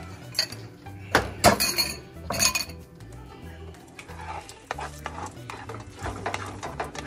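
Metal fork scraping and clinking against a ceramic bowl as beaten eggs are scraped out into a frying pan, with a few sharp clinks in the first three seconds and softer taps after.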